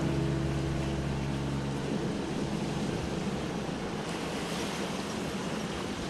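Ocean waves washing onto a beach, a steady rushing noise, with the last of a held music chord fading out over the first two seconds.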